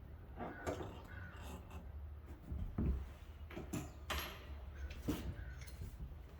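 A string of irregular knocks, clicks and scrapes from handling hard objects, over a low steady hum.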